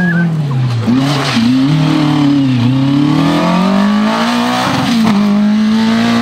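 Rally car engine, a Citroën AX, revving hard, its pitch rising and dipping again and again as the throttle comes off and back on, then holding a steadier note near the end.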